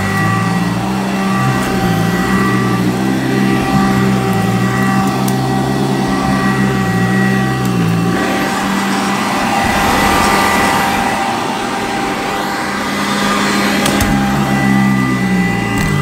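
Sanitaire commercial upright vacuum running on carpet: a steady motor whine over a low hum and rushing air. For several seconds in the middle the low hum drops away and the rushing air grows louder.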